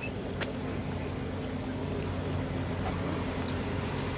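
Steady low mechanical hum with a constant drone, a few faint ticks over it.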